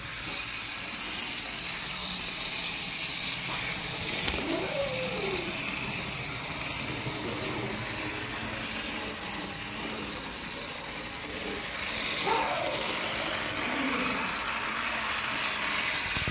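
Märklin Z-scale steam locomotive running around a small loop of track on its test run after repair: the tiny motor and gears give a steady high whirring hiss.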